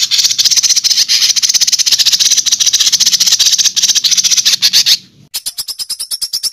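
Recorded songbird song in the harsh 'tembakan kasar' style: a dense, rapid-fire chatter of high notes. About five seconds in it breaks off, and after a short gap a steady train of sharp clicks follows at about ten a second.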